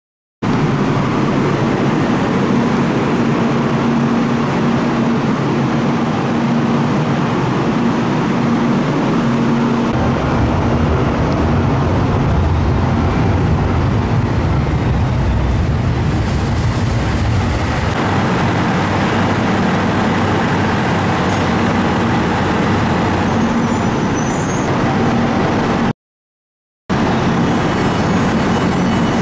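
Running noise of a JR Shikoku 8000 series electric express train heard from inside as it pulls into a station: a steady rumble with a faint hum. It is broken by about a second of silence near the end.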